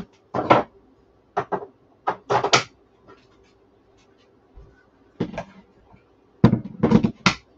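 Short plastic clacks and clunks from handling a cordless hot glue gun and fitting its battery pack, in several separate bursts, the busiest cluster near the end.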